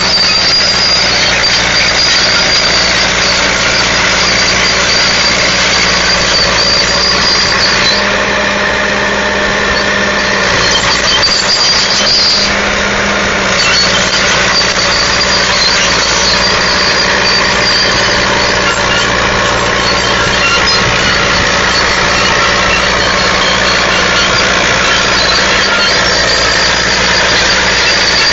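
Caterpillar 955H track loader's diesel engine running steadily as the crawler works through brush, with a steady high-pitched whine over the engine note.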